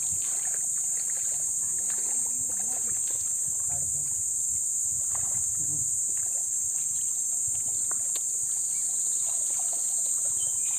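Shallow muddy water sloshing and splashing as people wade and sweep a hand net through it, over a steady high-pitched insect drone.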